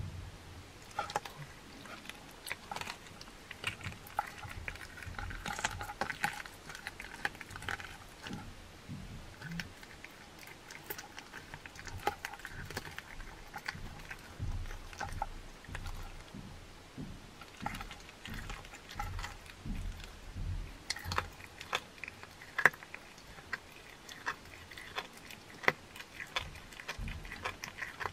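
Cat chewing and licking raw chicken head and raw meat at a bowl: irregular wet chewing and crunchy clicks from the bones of the head.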